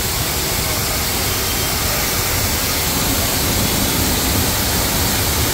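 A 4.5 HP, 200 bar high-pressure washer sprays a jet of water through its white nozzle: a steady, loud rushing hiss with a low hum beneath it.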